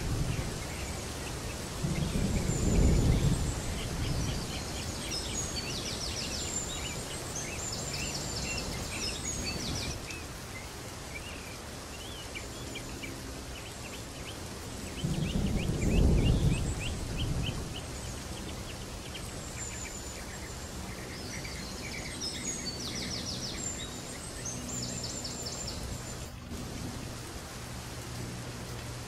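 Outdoor background ambience: steady noise with many short, repeated high chirping trills. Low muffled rumbles come about two seconds in and again about fifteen seconds in.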